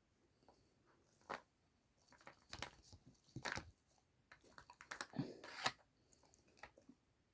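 Small dog working a treat puzzle toy and chewing treats: scattered clicks and knocks from the toy's pieces mixed with short bouts of crunching, busiest in the middle.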